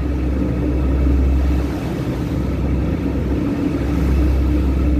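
Cruise boat's engine running under way: a steady hum over a low rumble that drops away for about two seconds in the middle.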